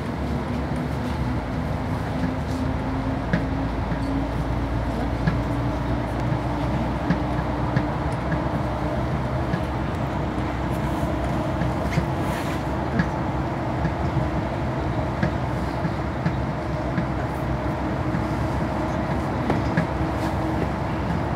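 Mercedes-Benz Citaro O530G articulated bus under way, heard from inside the cabin: steady engine and road hum with scattered small rattles and clicks. The engine note climbs over the first few seconds, then holds steady.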